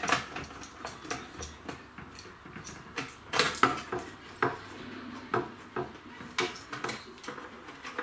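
Scattered light clicks and knocks from a Phillips screwdriver undoing the screws that hold the lid on a DVR recorder's case.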